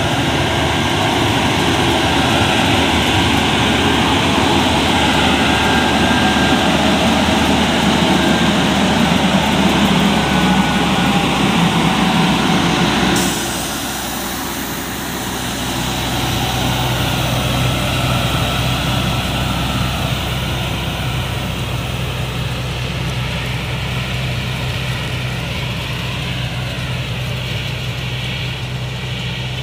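Shaktiman cotton picker running while it harvests cotton: a loud, dense mechanical noise from its engine and picking units. A little under halfway through, this drops sharply to a quieter, steady engine hum with a low drone.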